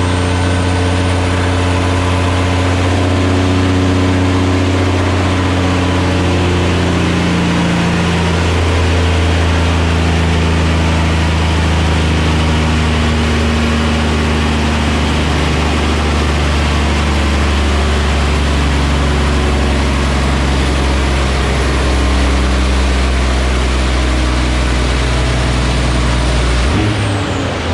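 Caterpillar 6NZ diesel truck engine running hard under load on a chassis dyno during a power pull, with a thin high whine over it. The engine's pitch shifts about a third of the way through, then falls near the end as the pull is let off.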